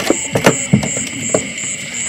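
Night chorus of insects and frogs: a steady high trill with a higher chirp pulsing about three times a second. Several sharp knocks sound over it, the loudest about half a second in.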